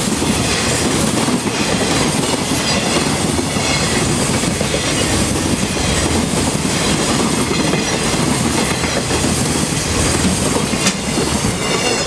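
Freight train's container flat wagons rolling past at close range, steel wheels running over the rails in a steady loud rush, with one sharp click shortly before the end. The noise starts to drop away right at the end as the last wagon clears.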